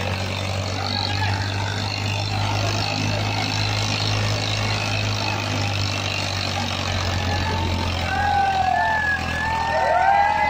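Farmtrac 60 tractor's diesel engine running hard and steady under heavy load as it pulls a harrow through dirt. Voices shout over it near the end.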